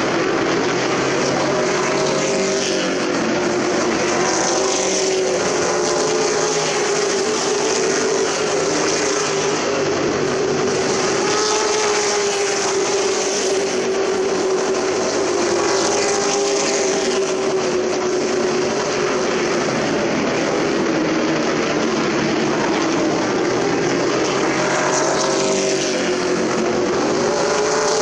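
Race trucks' engines running hard around a short oval track, the sound swelling and fading again and again as trucks pass.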